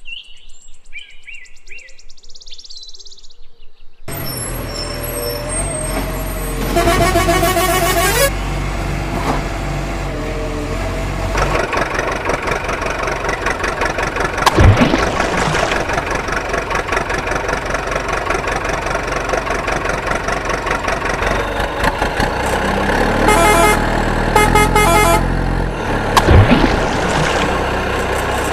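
Birds chirp for about the first four seconds. Then a heavy truck engine runs loudly, with horn blasts about seven seconds in and again near the end, and sudden air-brake hisses about halfway and near the end.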